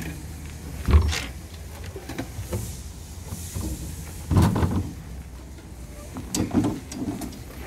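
Steel truck-side kitchen box being unlatched and its lid swung open: a few sudden metal knocks and clanks, the loudest about a second in, more around the middle and near the end.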